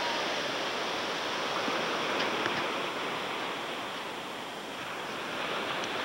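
Steady wash of beach ambience: distant gentle surf and a light breeze.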